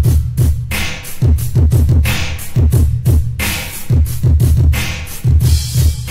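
Old-school hip-hop drum-machine beat, bass-boosted, kicking in suddenly at the start: heavy booming bass drum with sharp snare hits in a steady repeating pattern.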